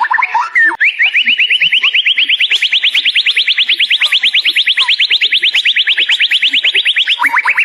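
White-rumped shama (murai batu) singing: a few varied whistled notes, then a long, fast trill of evenly repeated notes, about ten a second, that climbs slightly in pitch and holds, with a fresh trill starting lower near the end.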